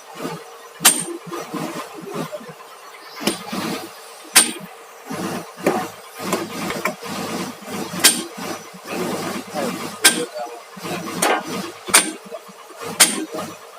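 Hammer striking steel: sharp, ringing metal blows at irregular intervals of about one to two seconds, over a steady hum, with voices talking in the middle.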